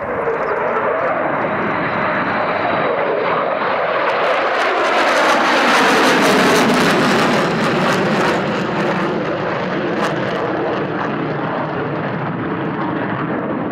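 Jet engine noise of three F-35A Lightning II fighters, each with a single Pratt & Whitney F135 turbofan, flying past in formation. It builds to its loudest about six seconds in, then slowly fades.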